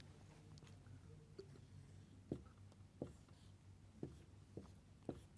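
Faint marker strokes on a whiteboard: a few soft taps and scrapes spaced about a second apart over a low room hum.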